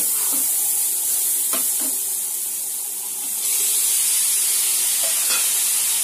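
Sliced cluster beans sizzling in a non-stick kadai as they are stir-fried with a wooden spatula, with a few light spatula knocks. The sizzle grows louder a little past halfway through, when chopped tomatoes go into the pan.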